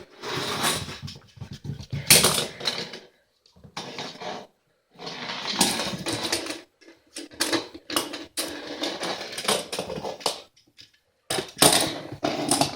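Dachshund puppy fetching a toy car: irregular scuffling, clicking and clattering in short bursts, broken by a few brief pauses.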